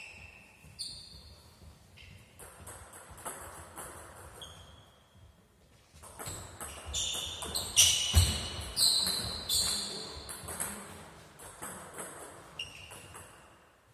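Table tennis ball clicking off bats and the table in a rally, each hit with a short high ping; a few scattered bounces come first, and the rally is densest and loudest from about six seconds in.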